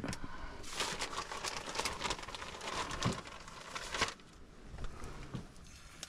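A plastic bag crinkling and rustling for about three seconds as a hand digs into it, after a short knock about the start.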